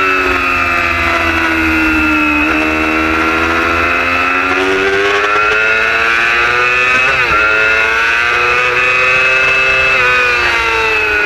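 Race superbike's engine heard from its own onboard camera at speed. The pitch sinks and climbs as the rider works the throttle through the corners, with a quick break in the note about seven seconds in, like a gear change.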